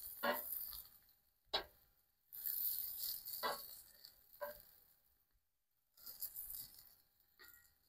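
Metal tongs clicking and scraping against a cast iron grill grate as sausages are turned, a handful of separate clicks, with a sizzling hiss from the sausages in between.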